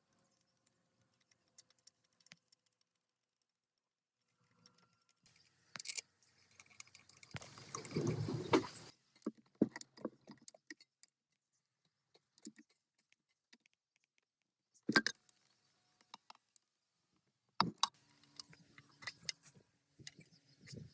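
Scattered metallic clicks and clinks of parts and hand tools being handled, with a longer noisy stretch of rattling about eight seconds in and a cluster of clicks near the end.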